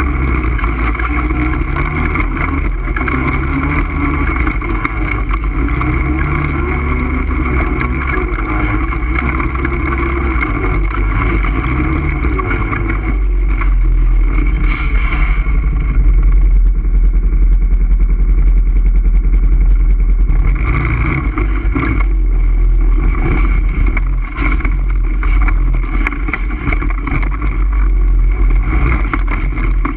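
ATV engine running steadily under way, with a heavy low rumble and many short knocks and rattles throughout.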